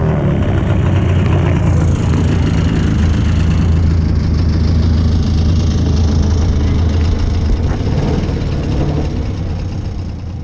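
Small engine running steadily at a low, even pitch, with a noisy whirr above the hum; it fades a little near the end.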